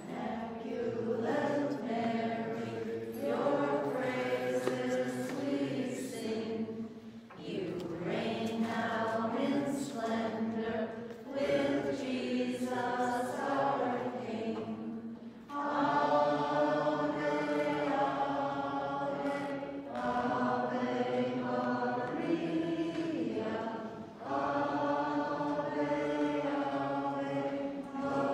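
Voices singing a slow chant-like hymn without accompaniment, in phrases of about four seconds with short breaks between them.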